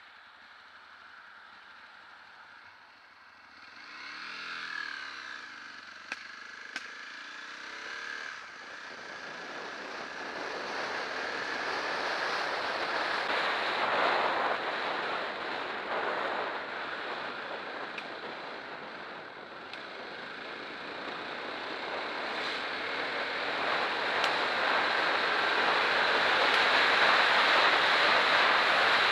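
Aprilia Tuono's V-twin engine revving, with two sharp backfire pops about six seconds in. Then wind rush and engine noise build steadily on the camera microphone as the motorcycle rides away and gathers speed.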